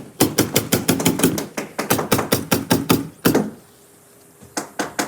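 Pneumatic nail gun firing in rapid succession, about eight sharp shots a second, pausing for about a second past the halfway mark before firing again.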